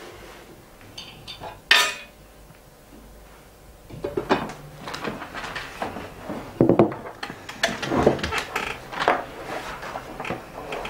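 Dishes and cutlery clinking: one sharp clatter of kitchenware a little under two seconds in, then from about four seconds a run of short clinks and knocks of spoons against plates and bowls.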